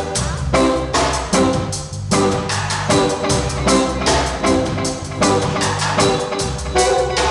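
Live band playing at a sound check: drum kit keeping a steady beat, bass and repeated chords over it.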